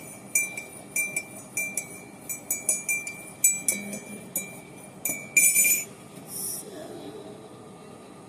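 Light clinking: a small hard object striking something that rings at the same pitch each time, about two or three strikes a second, with a quick run of jingling near the end before it stops.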